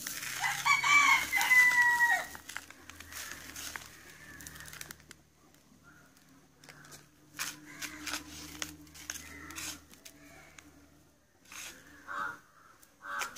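River sand hissing as it pours from a sack into a plastic bucket for a few seconds. A rooster crows once, loudly, from about half a second to two seconds in. After that come scattered short rustles and scrapes as hands spread and press the sand level.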